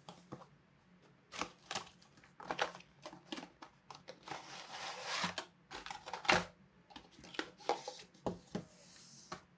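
Packaging being opened and handled: irregular clicks and rustles, with a longer rustling, sliding stretch about halfway through and a sharp click just after it.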